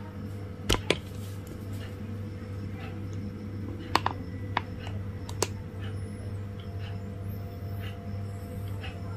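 Quiet room tone with a steady low hum and a few short, sharp clicks, the loudest about a second in and at about four seconds.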